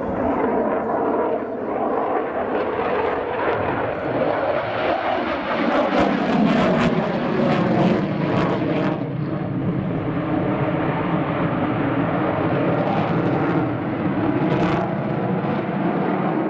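Dassault Rafale fighter jet's twin Snecma M88 turbofan engines, a steady rushing jet noise that swells around six to eight seconds in, with brief crackles.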